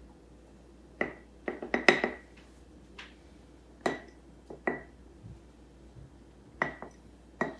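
Wooden spoon tapping against glass mason jars while seasoning is spooned into them: about ten irregular sharp clinks, several with a short ring.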